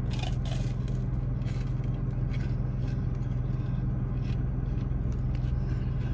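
Crunchy bites and chewing of a fried hush puppy, sharpest in the first second, over the steady low hum of a car running inside its closed cabin.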